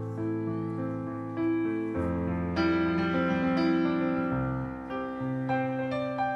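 Solo grand piano playing a slow intro of sustained chords, a new chord struck roughly every second and left to ring.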